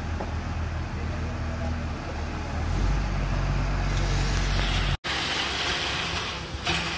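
Diesel tipper truck's engine running, getting louder about three seconds in as it works the hydraulic tipper. After an abrupt break about five seconds in, a rushing noise of river sand sliding off the raised bed, with a knock near the end.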